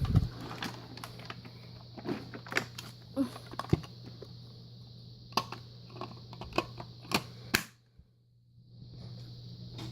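Vacuum cleaner motor running steadily with many sharp clicks and knocks from handling or debris. The motor sound stops near the end and starts up again about a second later.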